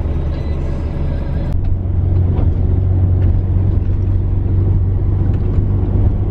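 Bus engine and road noise heard from inside the passenger cabin: a steady low drone that changes abruptly about a second and a half in, becoming a stronger, steadier low hum.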